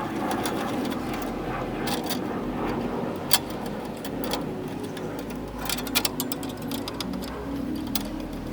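Scattered sharp clicks and small taps of hand-tool work as the screws holding a Jeep headlight retaining ring are backed out, a cluster of them about two thirds of the way in, over a steady background hum.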